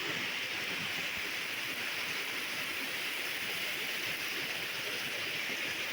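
Heavy rain pouring down, a steady even hiss that holds unchanged throughout.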